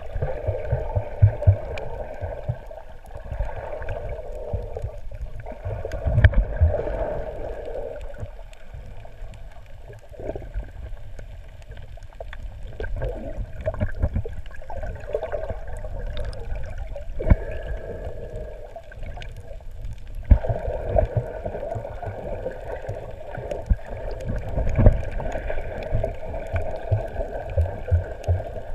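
Muffled underwater sound picked up through a camera housing: low water sloshing with irregular knocks and thumps, over a steady droning hum.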